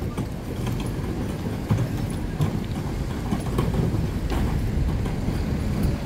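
Street traffic: a steady low rumble of passing vehicles, with a few light scattered clicks.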